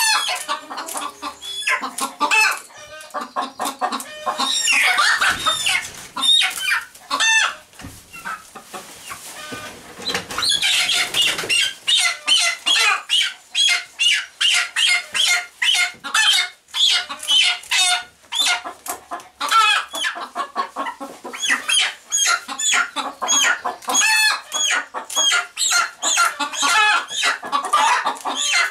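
Chickens clucking and calling continuously in many overlapping short, high calls, with a louder, noisier outburst about ten seconds in.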